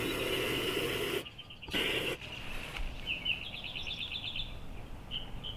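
Water from a garden-hose spray nozzle splashing into a plastic hydroponic bucket for about a second, stopping, then one short spurt more. From about halfway a small bird chirps in a quick run, then with single chirps every half second or so.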